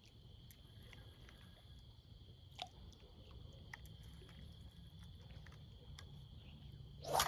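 Steady high trilling of insects over a low rumble, with scattered small clicks. Near the end comes a sudden loud swish followed by a quickly falling whine.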